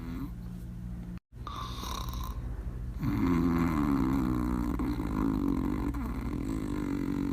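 Sleeping dog snoring: one long snore about three seconds in, lasting some three seconds, with the next snore starting near the end, over a steady low hum.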